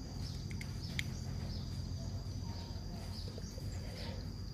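Background: a steady high insect buzz with soft chirps repeating about every half second, over a low rumble. One light click about a second in.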